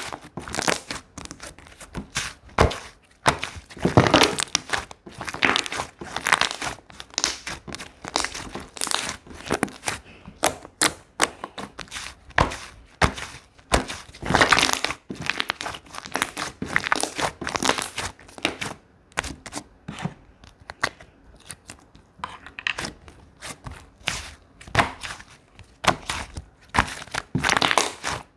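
Slime being squeezed, stretched and pressed by hand, with a steady run of irregular crackling and popping clicks.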